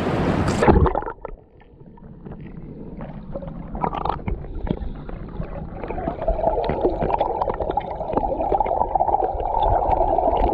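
Surf heard with the microphone underwater: about a second in, the wave noise cuts to a muffled, gurgling churn of moving seawater over sand, with scattered small clicks, building gradually louder.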